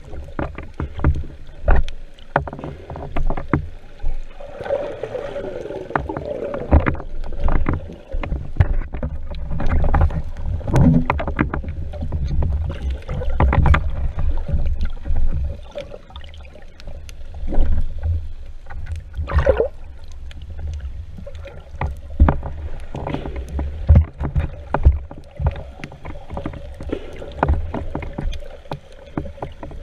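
Underwater sound picked up through a camera's waterproof housing: a continuous low, muffled water rumble with frequent knocks and clicks as the speargun and a speared fish are handled, over a faint steady hum.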